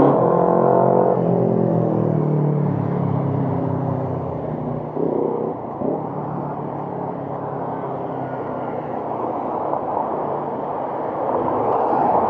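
City road traffic passing close by. A large vehicle's engine drone slides down in pitch as it goes past over the first few seconds, then steady tyre and engine noise continues, swelling again near the end as another car approaches.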